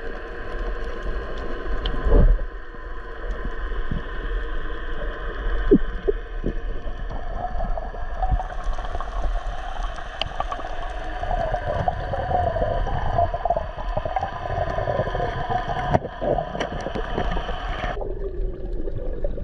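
Underwater sound through a camera housing: a steady hum with gurgling water and bubbles, and a couple of brief knocks early on.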